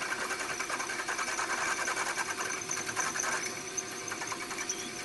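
Milling machine running a 5 mm drill down into a carburettor body, a steady machine hum with a high hiss as the drill cuts and breaks through into the choke bore. The sound eases a little about three and a half seconds in.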